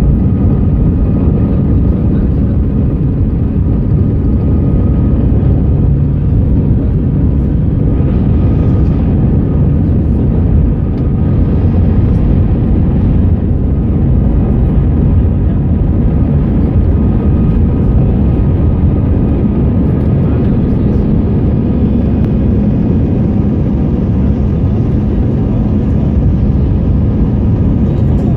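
Airbus A319-111's CFM56 engines at takeoff power, heard from inside the passenger cabin: a loud, steady roar with faint high steady tones above it, through the takeoff roll and climb-out.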